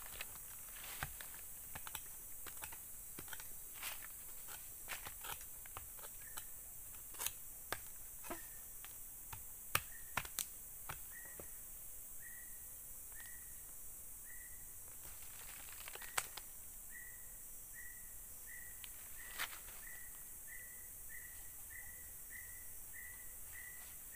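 A small hand digging tool scraping and knocking into soil and dry leaf litter in irregular clicks and scrapes. About halfway in, a repeated short chirp starts in the background and settles to about two a second.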